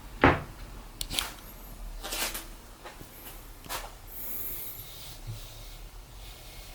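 Kitchen knife blade scraped along the rim of a kitchen sink basin to sharpen it: several short scraping strokes, with a sharp knock about a quarter second in that is the loudest sound.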